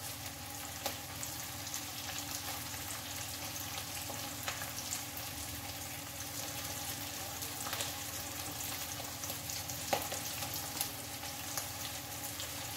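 Suji idli rounds frying in a little oil in a kadhai: a soft, steady sizzle with light crackling. There are a couple of faint clicks, about a second in and again near the end.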